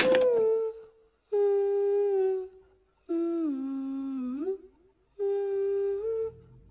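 A voice humming a slow tune in four separate phrases, each about a second long with short pauses between, the third phrase dipping lower and sliding back up at its end.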